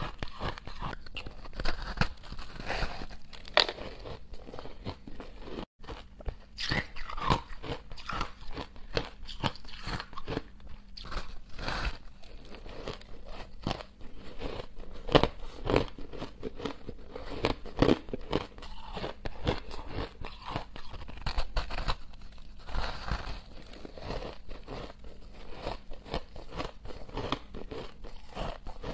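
Close-up crunching as chunks of frozen purple crushed ice are bitten and chewed: dense, irregular crunches one after another, with a brief cut to silence about six seconds in.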